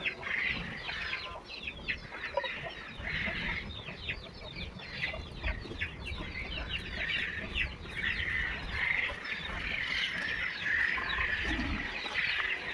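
Birds chirping: a dense, continuous run of short, falling chirps, with a low rumble underneath.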